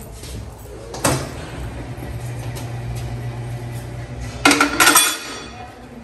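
Motorcycle tire-changing machine: a click about a second in, then its motor runs with a steady low hum for about three and a half seconds. Near the end comes a short loud burst of metal clanking and clinking as the tire is worked off the wheel on the machine.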